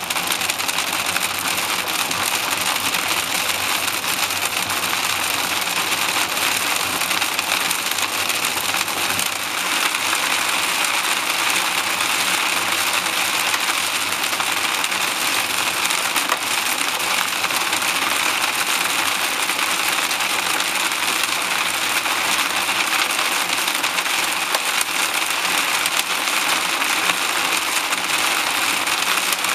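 Hail and heavy rain drumming on a car's roof and windshield, heard from inside the cabin as a dense, steady clatter of many small hits over the car's road noise.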